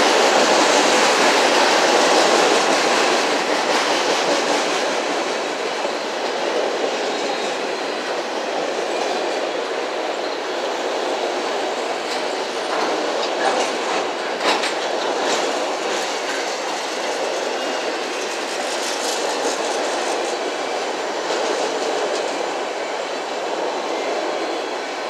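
Loaded autorack freight cars rolling past, a steady noise of steel wheels on the rails throughout. There is a run of sharper clacks about halfway through.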